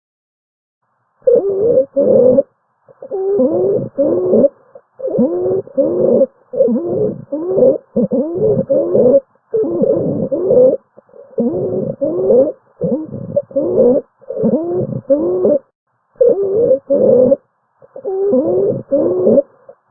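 Lung sounds heard through a stethoscope: pitched, musical adventitious sounds in short bursts, mostly in pairs, repeating about every one and a half seconds.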